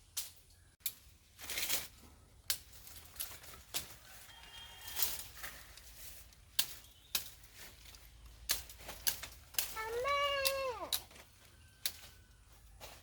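Fighting rooster flapping its wings in a series of sharp claps, with one drawn-out call about ten seconds in that drops in pitch at its end.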